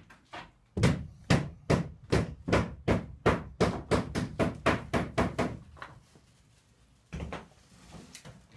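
A quick, even run of sharp knocks, about three a second, that fades out about six seconds in, followed by one more knock a second later.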